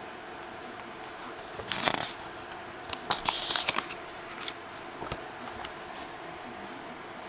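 Crisp paper pages of a handmade journal being turned by hand: rustling and crackling, loudest about two seconds in and again from about three to four seconds in, with a few light paper ticks after.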